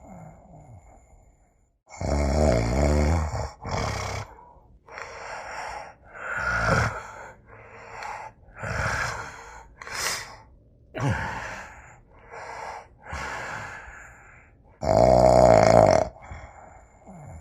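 Human snoring: a run of about a dozen separate snores and snorts of varied length. Loud, long, rattling snores come about two seconds in and near the end, with shorter snores and breathy snorts in between.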